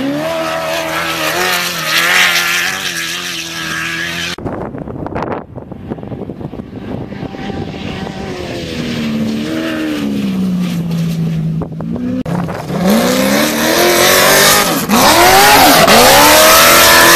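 Off-road race vehicle engines revving hard, their pitch swinging up and down, in cut-together clips. There is an abrupt change about four seconds in. The loudest stretch comes in the last few seconds, with quick rising and falling revs.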